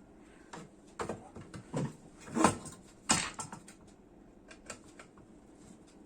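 Irregular clicks and knocks of the metal parts of an opened microwave oven being handled, about half a dozen, the loudest two near the middle.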